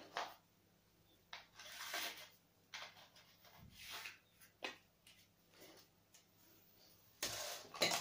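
Hard plastic attachments and extension tube of a PUPPYOO WP521 vacuum cleaner clicking and clattering as they are handled, swapped and fitted together: a series of separate short knocks, the loudest near the end.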